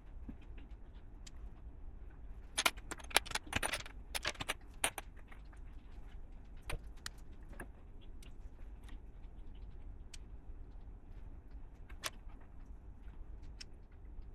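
Small plastic LEGO pieces clicking and rattling: a quick flurry of sharp clicks a few seconds in, then scattered single clicks, over a low steady hum.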